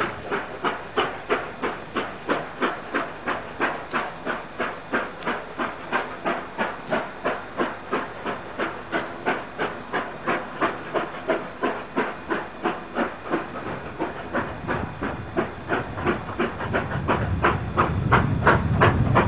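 Two steam locomotives, NSW C36 class 4-6-0 3642 and C59 class 2-8-2 5910, working hard on a steep climb: a fast, steady beat of exhaust chuffs. A low rumble builds in the last few seconds.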